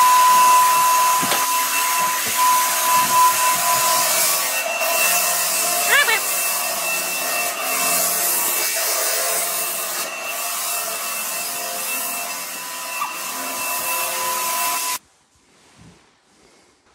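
Floor sander running steadily with a high whine, sanding the finish off a prefinished hardwood floor; it cuts off suddenly near the end.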